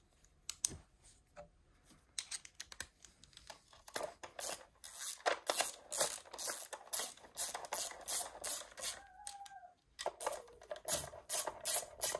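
Hand ratchet clicking in quick, even runs as it turns the 10 mm bolts of a timing belt cover on a Citroën BX engine, with a short squeak about nine seconds in and a brief pause before the clicking resumes.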